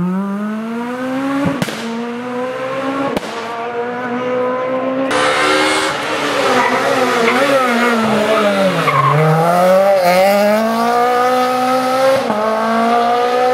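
Renault Clio rally car engines at full race pace: the first car accelerates hard through the gears, revs climbing with two quick upshifts; then a second car comes through a bend, its revs dropping as it brakes for the corner about two thirds of the way through, and climbing again as it accelerates out.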